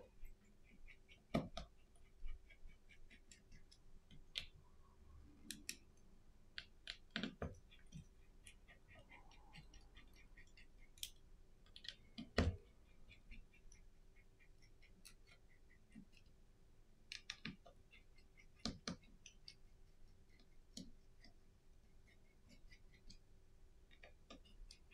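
Faint, scattered clicks and light taps of tweezers and a small precision tool on a Samsung Galaxy S10's frame and its tiny screws as the screws are removed and set down, with one sharper click about halfway through.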